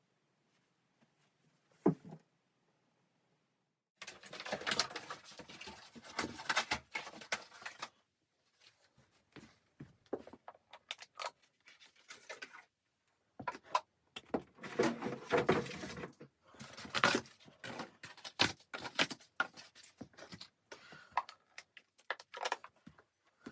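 A single knock, then irregular rustling and clattering in long spells with short pauses, like things being handled and moved close by.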